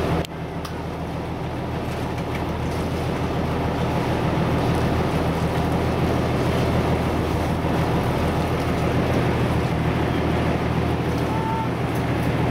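Steady low drone of a passenger boat's engine heard from inside the cabin, with a rush of water and wind over it.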